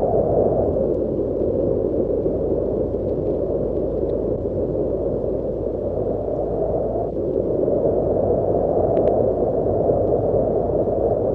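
Wind sound effect of a breeze: a steady low rushing of wind that swells and eases, dipping about a second in and again around seven seconds in, then building back up.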